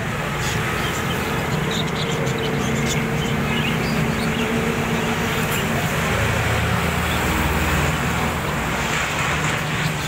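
A flock of caged budgerigars chirping and chattering all together, over a steady low hum of street traffic.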